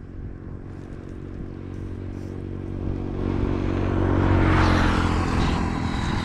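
Engine of a passing motor vehicle, growing louder as it approaches, loudest about four and a half seconds in, then starting to fade as it moves away.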